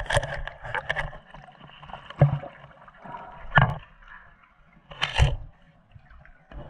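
Underwater water noise against an action camera's housing: sloshing and gurgling that surges in loud bursts every second or so over a steady hiss.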